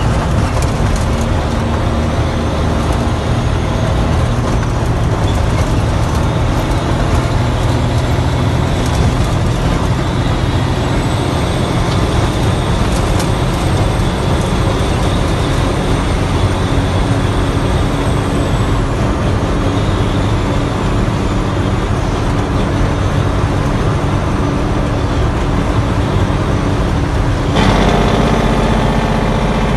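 Heavy truck's diesel engine and road noise heard inside the cab while driving, running steadily. Near the end the engine note turns louder, with a stronger pitched drone.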